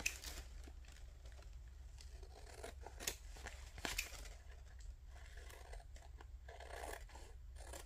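Scissors cutting through kraft paper glued to the back of an index card, trimming the overhang: a string of quiet snips with paper rustling as the card is turned.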